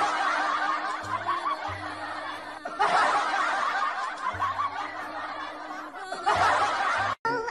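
Laughter sound effect of many people chuckling, in three swells over a low background music note, cut off abruptly just before the end.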